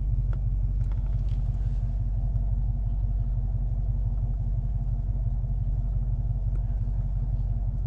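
Steady low engine rumble of a Chevrolet Silverado pickup, heard from inside the cab.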